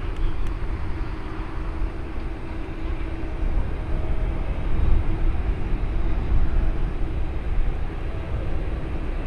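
Boeing 777-300ER on final approach, its two GE90-115B turbofans heard as a steady low rumble with a faint hum.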